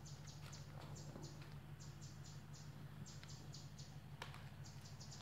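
Faint high chirping: many short chirps, often in quick runs of two to four, over a low steady hum. One sharp click comes about four seconds in.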